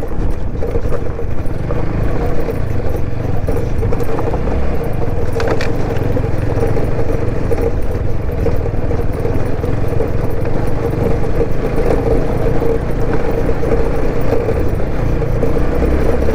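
TVS Apache RTR 160 4V's single-cylinder engine running at a steady pace off-road, its exhaust note bassy and raw. There is one sharp knock about five and a half seconds in.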